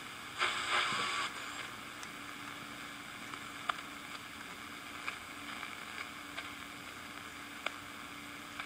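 Small portable shortwave radio's speaker hissing with static while tuned across an empty shortwave band, with no station coming in. A click at the start, a brief louder rush of static about half a second in, then steady hiss with a faint low hum and a few soft clicks.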